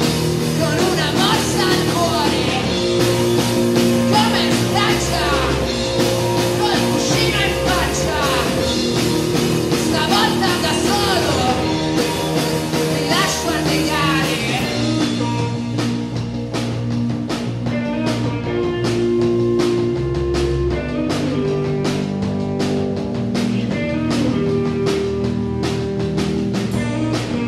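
Rock band playing live: electric guitar, bass guitar and drum kit, with singing. About halfway through the sound thins out into a sparser part with clear regular drum hits and held notes.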